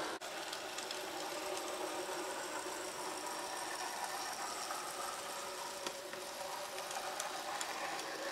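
Small electric motor and gearing of a Bachmann 009 Mainline Hunslet model locomotive whirring steadily as it runs along the track, hauling small wagons.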